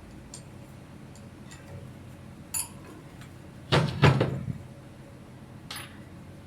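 A few sharp knocks and clinks of hard objects being handled, the loudest two close together about four seconds in with a brief ring after them, and a lighter one near the end.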